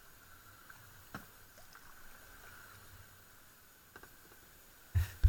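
Kayak paddling: faint paddle strokes and water drips, with a light knock about a second in. Near the end a sudden loud thump.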